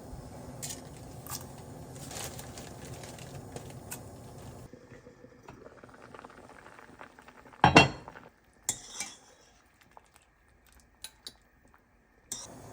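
Kitchen dishes and utensils clinking and clattering, with a steady background for the first few seconds, then a sharp loud clatter near the middle, a second smaller one a second later, and a few light clicks.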